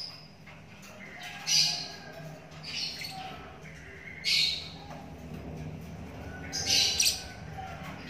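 A lovebird giving harsh squawking calls, about four of them one to two seconds apart, the last one doubled.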